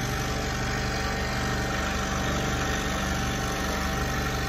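Scroll saw running steadily, its pinless blade stroking rapidly up and down as it cuts a script-letter pattern in a painted wooden board.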